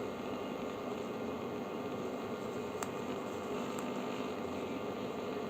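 Steady background hiss with a faint hum, and two faint clicks as keypad buttons are pressed to dial a number.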